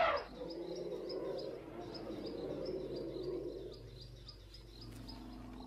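Bush ambience: a low, drawn-out animal rumble that fades after about four seconds, over high chirping repeating several times a second.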